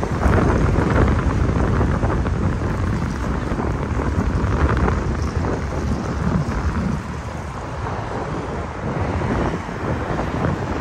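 Wind buffeting the microphone over the steady noise of a city street with traffic.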